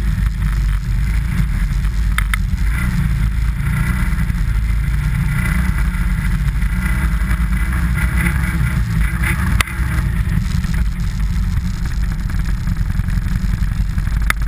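Steady rumble of wind buffeting a sled-mounted camera, with the Hammerhead sled sliding and scraping over packed snow. A single sharp knock comes about two-thirds of the way through, as from a bump.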